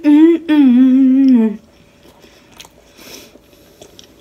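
A woman humming a wavering sung note with her mouth closed, which slides down in pitch and stops about a second and a half in. Faint chewing and mouth clicks follow.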